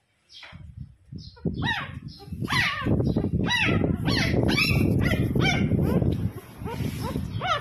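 Young puppy whining and yelping over and over in distress as it is picked up and held, short high cries that each fall in pitch, about two a second. Underneath is a loud rumbling handling noise close to the microphone.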